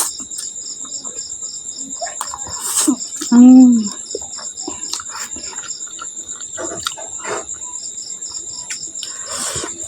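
A person chewing a big mouthful, with small wet mouth clicks and one loud, appreciative 'mmm' about three and a half seconds in. Behind it, insects chirp in a steady high pulse.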